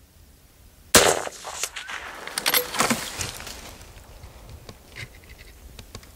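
A single loud gunshot about a second in, fired at a coyote, followed by a couple of seconds of smaller knocks and rattles that die away.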